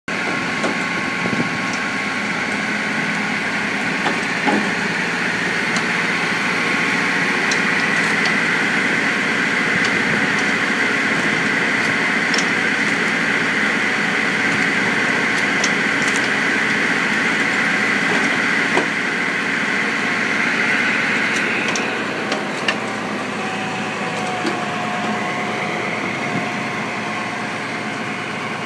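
McConnel tractor-PTO saw bench and foot-operated hydraulic log splitter running steadily, with scattered knocks and cracks of logs being cut and split. The machine noise drops a little after about twenty seconds.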